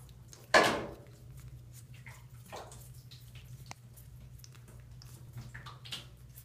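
Water dripping and splashing in a bathtub, slowed down, over a steady low hum. A loud splash comes about half a second in, followed by scattered smaller drips.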